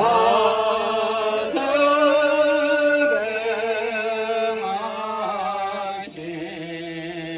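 Tibetan prayer chant in long held notes that step to a new pitch every second or two, the first note sliding up into place.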